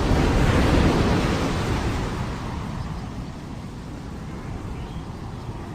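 Ocean surf: a wave breaks on the shore, swelling to its loudest about a second in, then fades slowly as the wash runs back.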